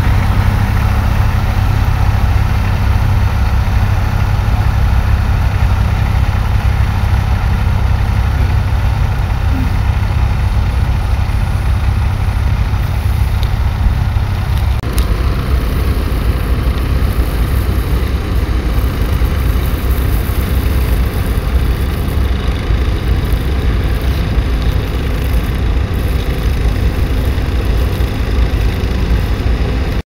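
Diesel tractor engines working steadily under load while ploughing. For the first half it is a vintage blue Fordson close by; about halfway through the sound changes abruptly to a modern cab tractor ploughing.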